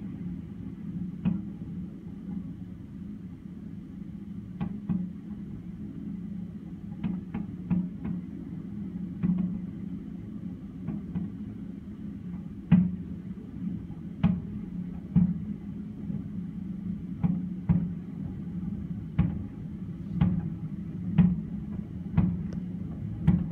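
Fireworks shells bursting: an irregular series of sharp bangs, louder and more frequent in the second half, over a steady low rumble.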